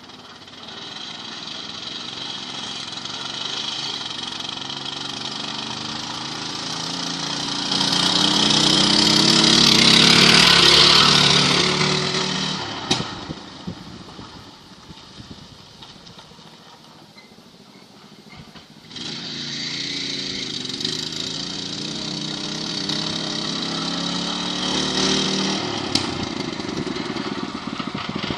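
Small 6.5 hp walk-behind-tractor engine powering a VAZ 2109. It runs and builds to its loudest about ten seconds in, drops away suddenly about thirteen seconds in, then comes back abruptly about six seconds later and runs steadily.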